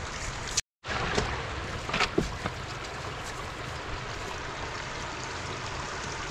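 Shallow floodwater running over a road, a steady rushing noise, with a few short splashes as a wet cast net is gathered up in it. The sound drops out completely for a moment under a second in.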